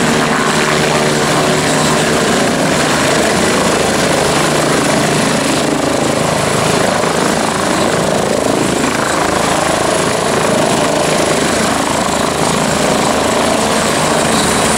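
Medical helicopter hovering low and setting down: loud, steady rotor and turbine noise.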